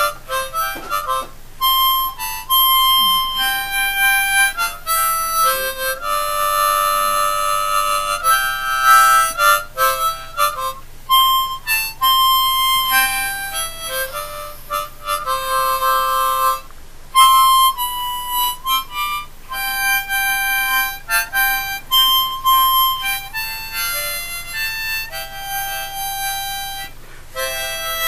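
Music: a melody played on a reedy wind instrument, held notes changing every second or so.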